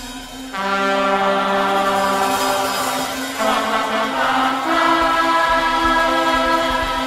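Music of slow, held chords, the notes changing about three seconds in and again near five seconds, with a low rumble beneath at the start and again from about five seconds in.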